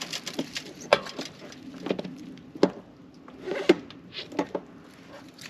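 Irregular sharp clicks and knocks of hand tools being handled, about six of them roughly a second apart, over light rustling of dry leaves.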